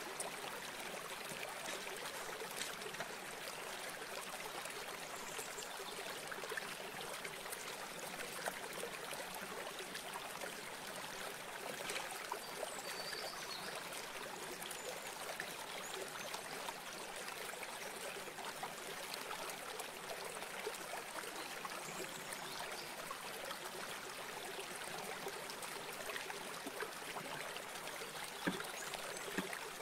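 River water flowing, a steady even rush that does not change, with a few faint clicks.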